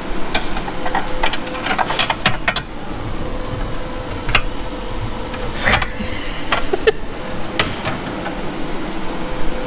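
Scattered clicks and knocks of hand tools and parts on metal during work under an old car's dashboard, several close together at first and then single ones a second or so apart, over a steady hum.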